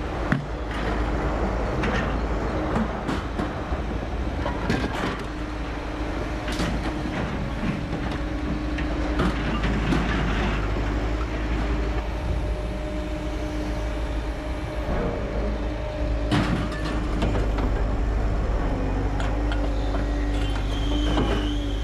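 Liebherr LH 50 scrap material handler working, its machinery running with a steady hum while its grapple handles heavy scrap iron, giving irregular clanks and crashes of metal; a sharp crash stands out about sixteen seconds in.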